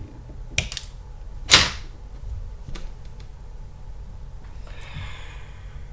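Small clicks and handling noises of plastic RC car shock parts being fitted together by hand, with one sharp, louder snap about one and a half seconds in.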